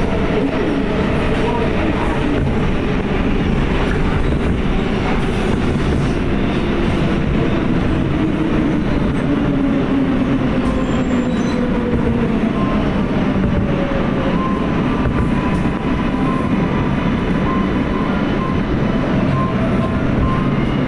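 R143 subway car running on the rails and slowing into a station. Steady wheel-on-rail rumble, with the propulsion whine falling in pitch as the train brakes.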